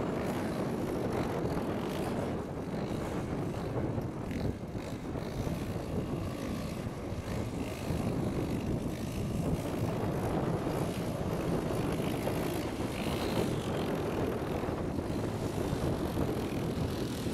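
A motorcycle engine droning steadily as the bike is ridden through a flooded river ford, with wind rumbling on the microphone.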